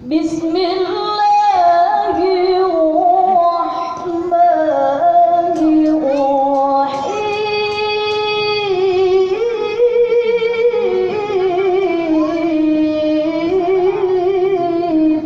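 A woman reciting the Quran in melodic tilawah style: one continuous chanted passage of long, held, ornamented notes with vibrato, gliding between pitches.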